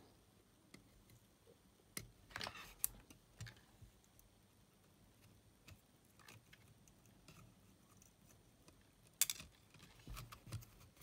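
Sparse faint clicks and taps from handling a Sony WM-EX900 cassette Walkman's opened metal chassis while a small switch is desoldered from its circuit board, with a short cluster of clicks about two to three seconds in and a sharper click about nine seconds in.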